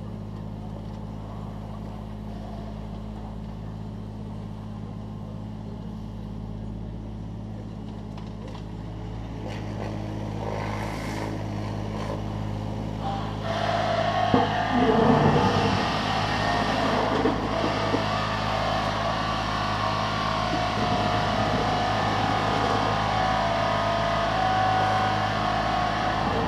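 Takeuchi TB216 mini digger's diesel engine running steadily. About halfway through it grows louder under load, with a rasping, rattling noise of the bucket working the stone and a few knocks.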